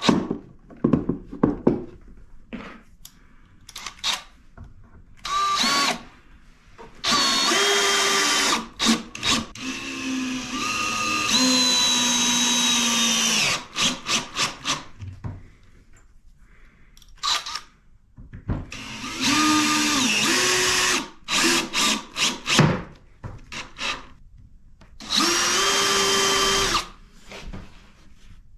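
Cordless drill running in repeated bursts, a few longer runs of one to three seconds between many short trigger blips, its motor pitch ramping up and down with each run. It is drilling and driving screws into pine boards.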